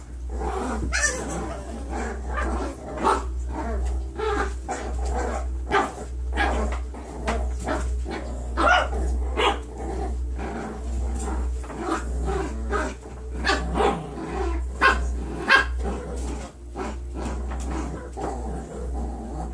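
Young puppies play-fighting, giving many short, irregular barks, yips and growls, with a few louder barks in the second half.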